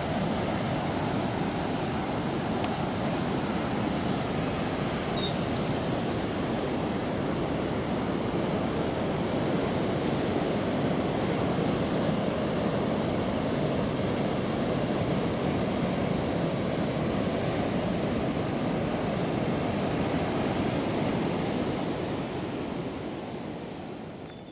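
Steady rushing noise, like surf, fading out over the last few seconds. A few faint high chirps sound about five seconds in.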